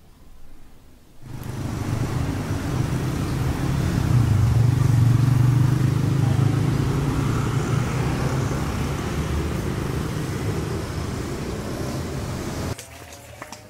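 Road traffic noise with a motor vehicle's engine running close by. It starts suddenly about a second in, swells to its loudest around five seconds, slowly fades, and cuts off abruptly near the end.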